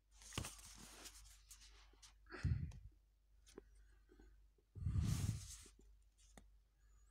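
Paper pages of a comic book being turned and handled close to the microphone: three rustling, scraping bursts about a second in, at two and a half seconds and at five seconds, the later two with a dull low thump of handling.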